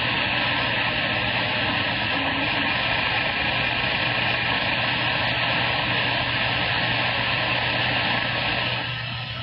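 CB radio receiver hissing with steady band static, a station too weak to copy lost under the noise; the band conditions are rough. The hiss eases a little near the end.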